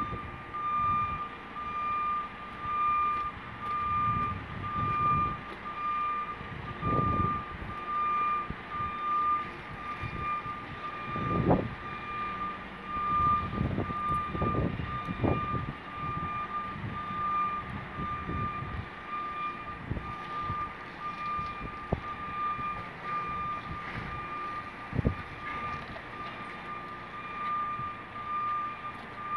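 A JCB demolition machine's reversing alarm beeps steadily, about once a second, over its running diesel engine. Heavy thuds and crunches come as the steel structure is torn down, the loudest about eleven seconds in.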